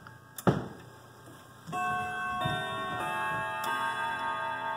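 Howard Miller Tempus Fugit wall clock sounding its quarter-hour chime: a sharp click about half a second in, then a short run of chime notes, each starting about a second apart and left ringing together.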